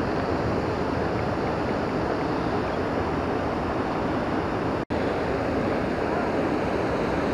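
Steady noise of the Upper Kings River flowing through riffles and small rapids, even in level throughout. It cuts out for a split second a little before the five-second mark.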